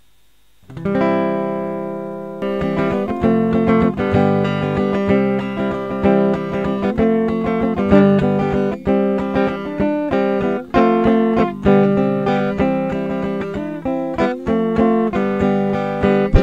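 Acoustic guitar strummed: after a short pause a single chord rings out and fades, then steady rhythmic strumming of chords begins about two and a half seconds in, the instrumental intro of a song.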